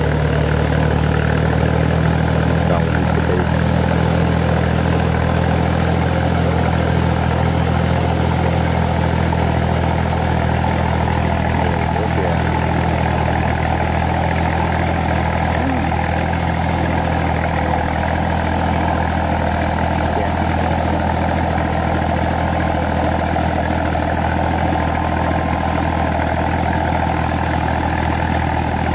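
Iseki 3510 small diesel tractor engine running steadily under load as it drags its cage wheels and a levelling board through a flooded paddy.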